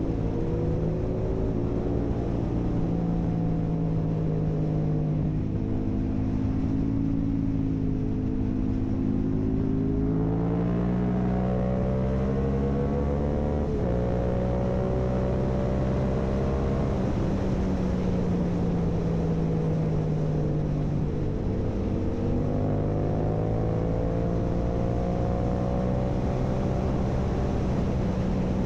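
2022 Yamaha R7's parallel-twin engine running through an Akrapovic full carbon exhaust while riding. Its pitch rises and falls several times, with sudden jumps about ten and fourteen seconds in.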